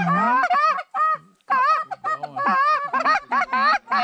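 Several hunters blowing Canada goose calls hard and fast: overlapping honks and clucks, each note breaking sharply upward, with a short pause about a second in.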